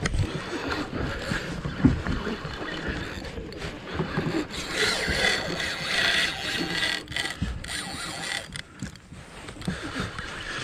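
A spinning reel being cranked under the load of a hooked fish, mixed with knocking and rubbing handling noise and a rush of wind and sea water on the microphone. A louder hiss builds up about halfway through and then fades.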